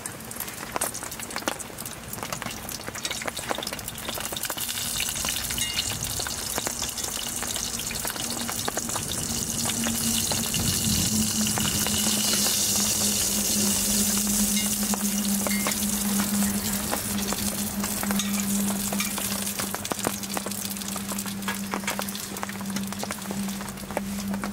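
Food sizzling in a pan on a wood stove. The sizzle builds about five seconds in and is loudest mid-way, with scattered small clicks and crackles throughout. A steady low hum joins about a third of the way in.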